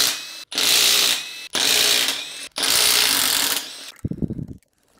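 Cordless impact driver run in four bursts of about a second each, backing out the carrier bearing cap bolts of a Ford 10.5-inch Sterling differential; each burst drops off in loudness near its end.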